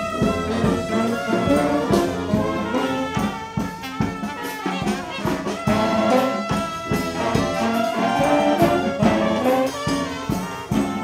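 Brass band playing a tune together, trumpets and trombones in harmony, with percussion hits keeping a steady beat.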